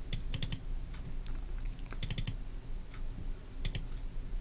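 Computer keyboard and mouse clicks while editing a spreadsheet: a few short clusters of two or three quick clicks, spaced apart, over a faint steady low hum.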